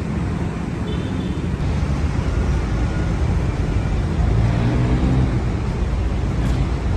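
Busy city road traffic: a steady rumble of passing cars and engines, with a heavier engine hum swelling by about four seconds in and fading a second or so later.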